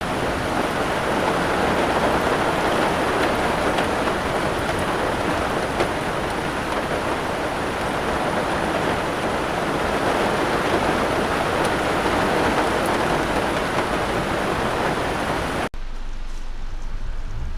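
Heavy rain falling in a steady, dense hiss, with scattered faint drop ticks. About two seconds before the end it cuts off abruptly to a quieter, different sound with a low rumble.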